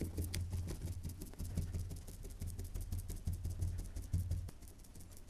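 A paintbrush stippling epoxy resin into biaxial glass fabric on a GRP hull panel: rapid, close-spaced ticking dabs with low knocks as the brush is pressed hard to compact the glass and drive out air.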